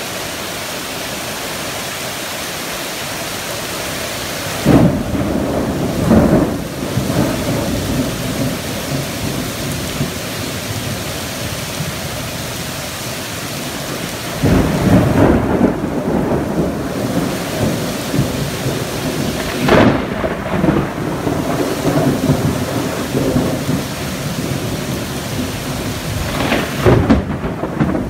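Heavy rain falling in a steady hiss, with loud rolls of thunder rumbling in several times: about five seconds in, around the middle, and near the end.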